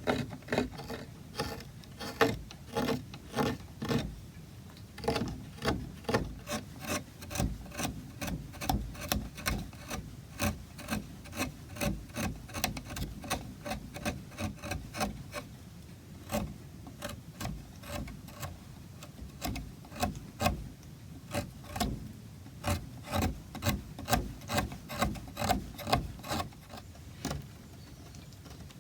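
Short rasping strokes of a hand carving tool on oak, about two or three a second, stopping shortly before the end.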